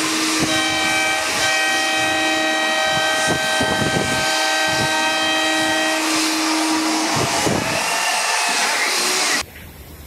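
Several ship horns sound together in a held chord, with a lower horn carrying on a little longer, over a loud rushing noise of water and crowd as a ship slides down the slipway at its launch, the horns saluting it. About nine seconds in it cuts to a much quieter sound of wind and water.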